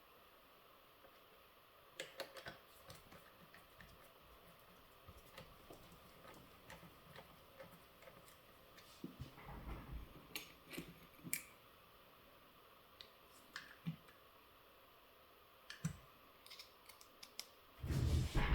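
Scattered light clicks and taps of small parts being handled while an RC loader's track assembly is put back together, with a louder low bump near the end.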